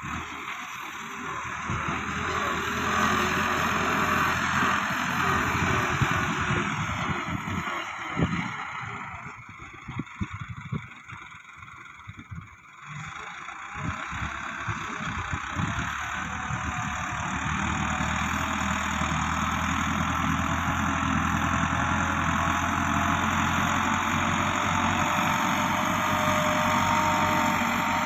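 Massey Ferguson 375 tractor's diesel engine running under load as its front blade pushes soil. It drops much quieter for a few seconds in the middle, then runs steadily again.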